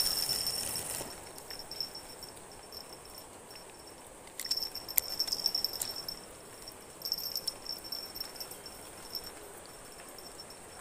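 Insects chirping in high-pitched buzzing bursts that come and go, with a brief rushing hiss at the very start as a spinning rod is cast.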